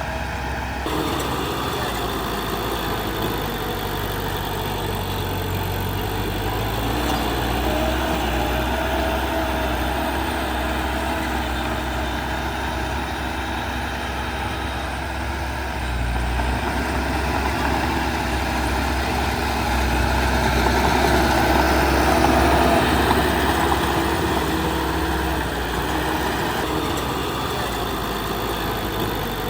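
Diesel engine of heavy earthmoving machinery, a bulldozer or dump truck, running steadily with a low rumble. It grows louder for a few seconds twice, in the middle and again about three quarters of the way through.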